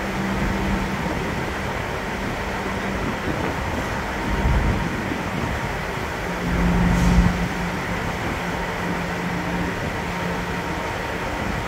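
MV Saaremaa 1 car ferry's engines droning with a steady low hum while docking, swelling louder about four and a half seconds in and again from about six to seven and a half seconds in. Wind rumbles on the microphone.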